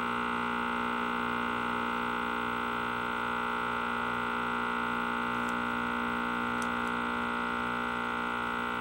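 Steady buzz from the 1955 General Electric 14T007 television's speaker: one unchanging tone with many overtones. It is an audio fault in the set that still has to be worked out.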